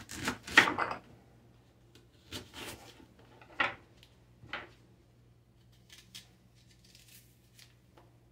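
Knife cutting through a crisp green apple on a wooden cutting board. The crunching cuts are loudest in the first second, followed by three shorter cuts about a second apart and a few faint clicks near the end.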